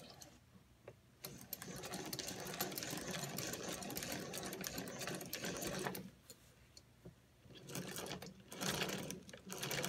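A homemade single-cylinder air engine being turned over by hand, its crank, piston and valve parts giving a fast mechanical clicking rattle. It runs from about a second in to about six seconds, stops, and starts again in shorter spells near the end.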